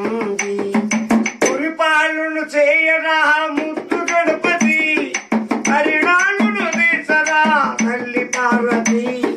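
A man singing a Telugu folk song unaccompanied except for a pair of hand-held clappers, clacked in a fast steady rhythm of about five strokes a second.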